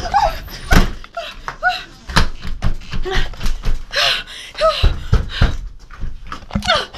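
A house entry door being shut hard and its knob and deadbolt worked, giving a series of knocks and thuds, the loudest about a second in. A woman pants and gasps in fright over it.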